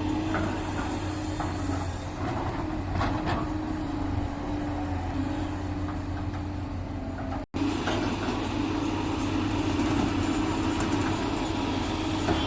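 Heavy diesel machinery engine running steadily with a low drone and hum. It cuts out for an instant about seven and a half seconds in, then carries on unchanged.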